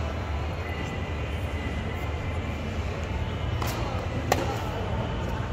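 A tennis racquet strikes a ball on a forehand with one sharp pop about four seconds in, just after a fainter knock. Under it runs the steady low hum of an indoor arena, with faint murmuring voices.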